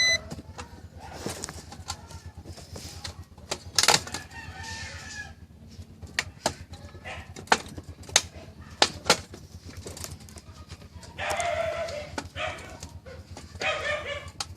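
A chicken calls twice near the end, amid scattered clicks and knocks throughout.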